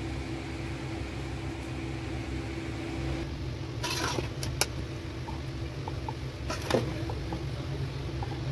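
A metal serving spoon scraping and clinking against a metal pot and a glass serving dish as cooked rice is dished out, a few short scrapes and clicks about four and seven seconds in. A steady mechanical hum runs underneath.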